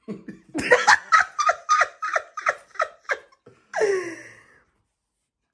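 A person laughing in a run of short bursts, about three a second, followed a little later by one longer laugh that falls in pitch.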